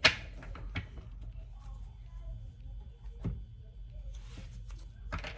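Tarot cards being handled on a table: a sharp tap at the start, a few softer taps, and a brief rustle about four seconds in.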